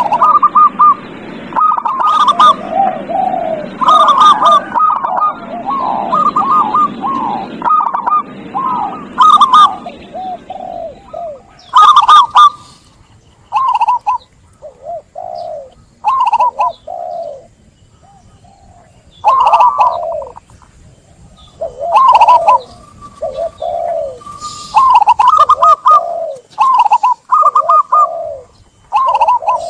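Zebra doves (perkutut) cooing in repeated short, staccato phrases, dense and overlapping through the first half and more spaced out after. This is the kind of perkutut song used as a lure to set a silent bird singing.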